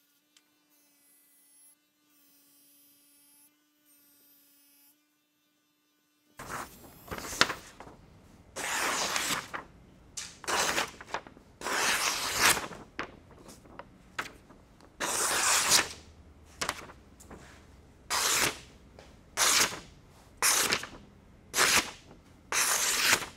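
A freshly sharpened steel cleaver slicing through a sheet of paper, a quick dry rasp with each stroke, repeated many times in irregular succession from about six seconds in: a paper-cutting test of the edge. Before that only a faint steady hum.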